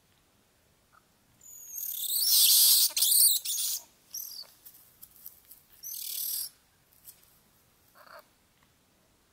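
Harsh, hissing animal calls. A loud run of rasping calls lasts about two seconds, a shorter one follows a couple of seconds later, and fainter short calls come near the end.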